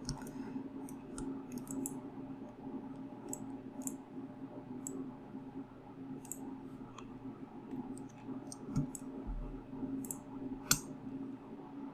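Irregular computer mouse clicks, light and scattered, with one sharper click near the end, over a steady low hum.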